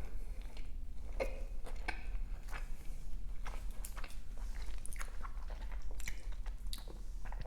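Close-miked chewing and biting of a Jollibee cheesy yumburger: wet mouth clicks and soft smacks come every fraction of a second, over a steady low hum.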